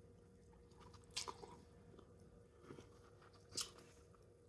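Faint eating sounds close to the microphone: soft chewing and mouth clicks, with three short, sharper smacks about a second in, near three seconds and just past three and a half seconds, over a faint steady hum.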